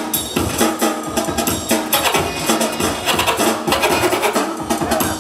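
Breakbeat dance music with a steady drum beat.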